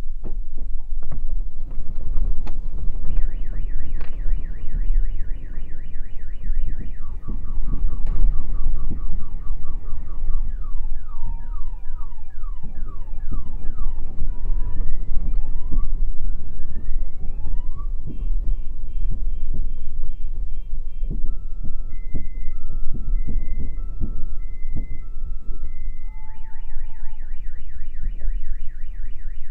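Car alarm going off, cycling through its tones: a fast warble, rising whoops, then alternating two-note beeps, starting a few seconds in. It sounds over a loud, constant low rumble with rattling knocks, during earthquake shaking that likely set the alarm off.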